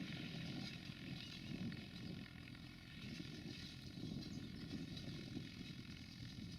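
New Holland T6010 tractor's engine running steadily while it pulls a Kverneland plough, a fairly faint, even hum with a low rumble beneath.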